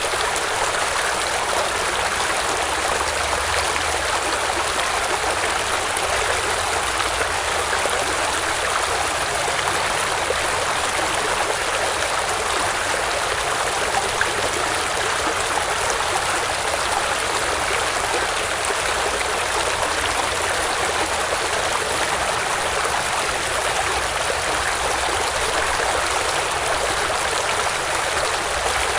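Water of a stream flowing steadily, an even rushing sound with no breaks or changes.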